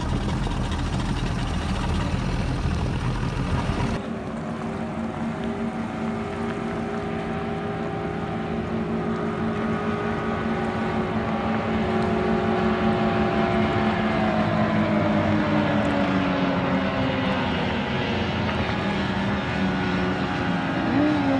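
Outboard-powered runabouts running at speed over the water, a steady engine drone of several tones. Its pitch slides down in the second half as the boats pass and draw away, with a brief rising whine near the end. For about the first four seconds there is instead a low rumble heard from aboard a boat, then the sound changes abruptly.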